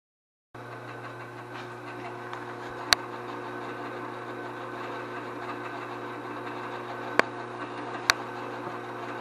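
Drill press running with a step drill bit cutting a hole in quarter-inch hot-rolled steel plate: a steady hum with cutting noise, starting abruptly about half a second in. Three sharp clicks, the last two close together near the end.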